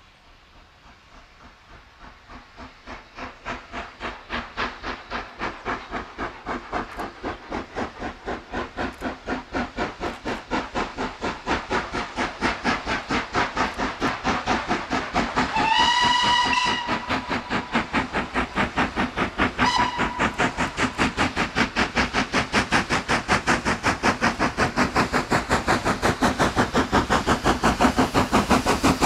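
Steam locomotive working towards the listener, its regular exhaust beats growing steadily louder. About halfway through it sounds its whistle for about a second, then gives a short second toot.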